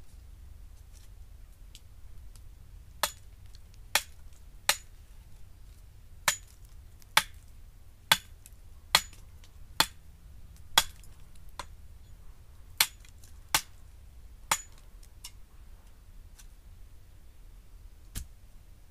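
A series of sharp strikes, about a dozen at roughly one a second, each with a slight metallic ring, breaking off and followed by one last strike near the end; typical of hammering or chopping at camp.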